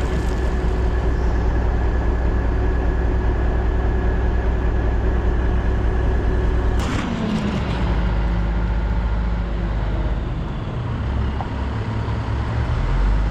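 A heavy engine running steadily at a constant pitch. About seven seconds in there is a sharp knock, the pitch drops, and the engine carries on lower and less even.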